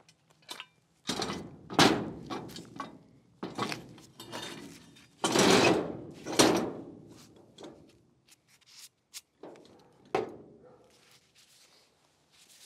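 Steel truck-bed crane parts being handled and set down on a steel diamond-plate trailer deck: a series of thunks, clanks and scrapes, with a longer scrape about five seconds in and a last knock about ten seconds in.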